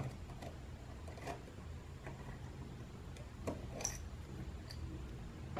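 A few faint, scattered clicks and small metallic ticks of the Canon Demi EE17's lens parts being handled and turned by hand, over a low steady hum.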